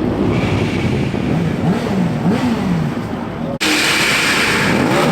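Car engines revving, their pitch rising and falling several times. About three and a half seconds in, the sound cuts off abruptly and another revving car takes over.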